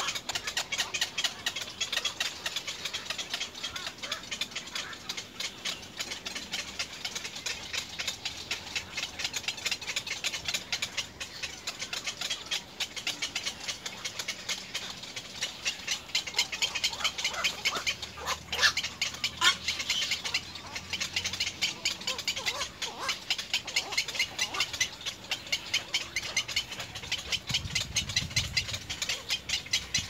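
Little egret nestlings calling: a fast, continuous clicking chatter, with a few higher squealing calls a little past halfway.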